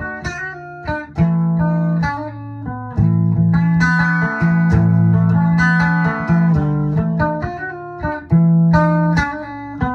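Guitar music: notes picked one after another over held low notes.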